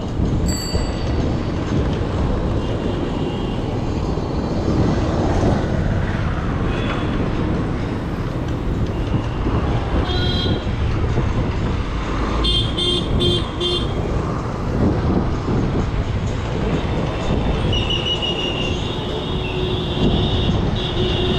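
Steady wind and road rumble from riding a bicycle along a busy city street, with short high ringing tones about halfway through and a longer held horn tone near the end.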